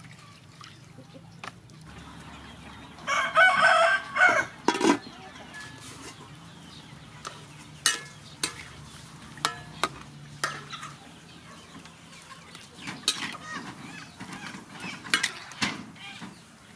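A rooster crows loudly about three seconds in, and hens cluck later on. In between, a metal ladle clinks several times against an aluminium wok as octopus is stirred in it.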